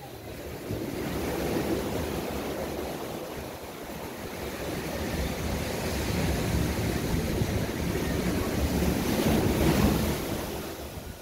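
Pacific surf breaking and washing on the shore: a steady rush that builds about a second in, swells to its loudest near the end, then eases off.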